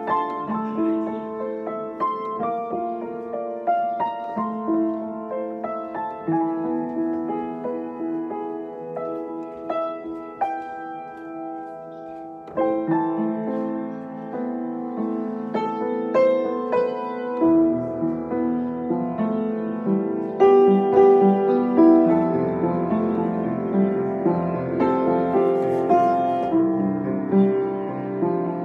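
Upright piano being played: a melody over chords that grows louder partway through, with deep bass notes coming in past the middle and the fullest, loudest playing near the end.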